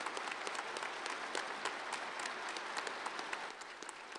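Crowd applauding: dense hand-clapping that thins out and drops in level near the end.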